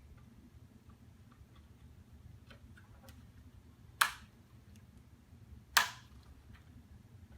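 Two sharp plastic clicks about a second and a half apart, four seconds in and near six seconds: RAM modules snapping into the slots of a 2006 Mac Pro memory riser card, the ejector latches locking. Fainter small clicks of handling come before them.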